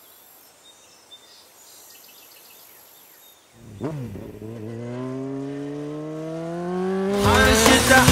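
A faint outdoor background with a few small bird chirps. About three and a half seconds in, an engine starts up and rises steadily in pitch as it accelerates. Music with singing cuts in near the end.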